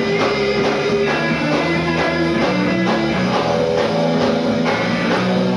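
Live rock band playing an instrumental stretch, with guitar notes held over a drum kit and no singing.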